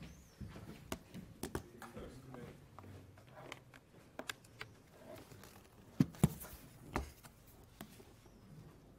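Scattered clicks and knocks of equipment being handled at a lectern, the loudest two about six seconds in and another just after, with faint murmuring voices in the first couple of seconds.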